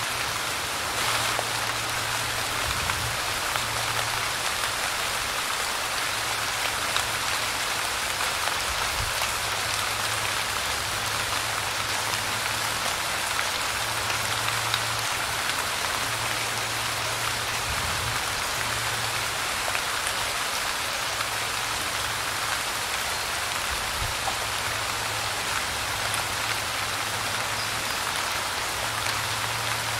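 Steady light rain, an even patter of drops falling on a surface, with a faint low hum that comes and goes beneath it.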